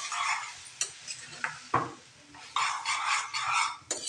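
Metal ladle stirring prawns through thick masala in a frying pan, scraping against the pan in two bouts, with a few sharp clicks where it knocks the pan.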